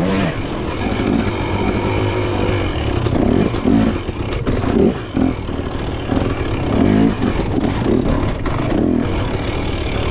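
KTM off-road motorcycle engine revving up and down repeatedly, its pitch rising and falling many times.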